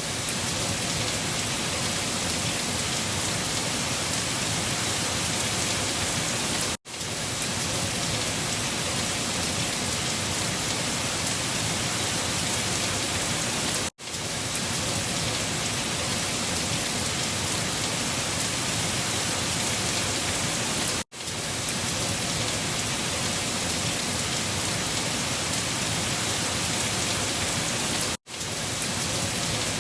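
Rain falling steadily as an even hiss. It drops out for a split second about every seven seconds.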